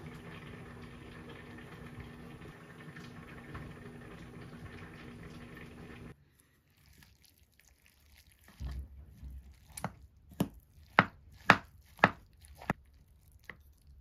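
A steady hiss with a low hum that cuts off suddenly about six seconds in. After a soft thud, a spoon clinks and scrapes against a metal bowl about seven times as rice is mixed, the sharpest clinks near the end.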